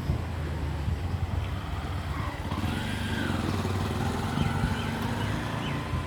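Steady low rumble of motor traffic, with an engine-like hum, and a few faint chirps over it in the middle.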